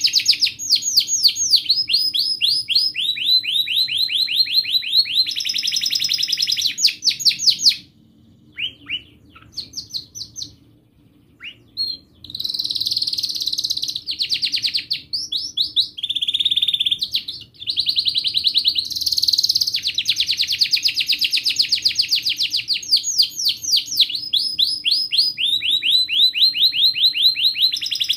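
Domestic canary singing a long song of rapid trills, rolls of quickly repeated notes that shift from pitch to pitch. About a third of the way through, the song drops to a few seconds of scattered short notes, then resumes with long trills.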